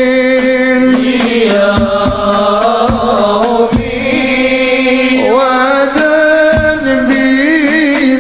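Sholawat, Islamic devotional singing: a voice holding long, slowly ornamented notes, with a drum struck every second or two.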